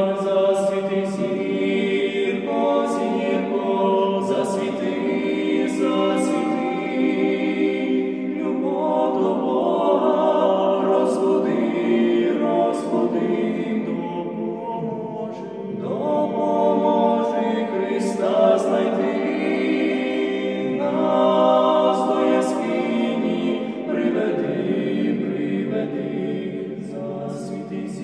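Three male voices singing a Ukrainian Christmas carol a cappella in close harmony, with held chords that shift from phrase to phrase.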